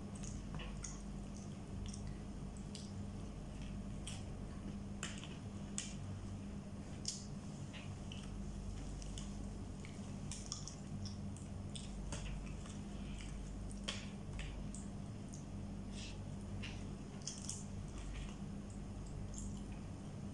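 Close-up eating of KFC fried chicken: wet smacks, chewing and the crackle of fingers tearing the meat and crispy skin, as irregular short clicks. A steady low hum runs underneath.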